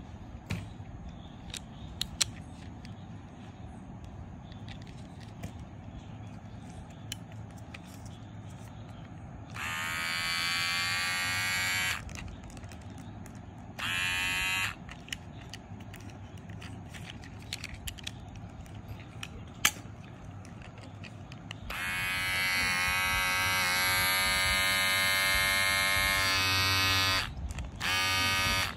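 Wahl Colour Pro cordless hair clipper switched on and off four times, its motor and blades buzzing steadily. The runs last about two seconds, under a second, about five seconds, and a brief burst near the end. Between runs there are light clicks and handling of the clipper.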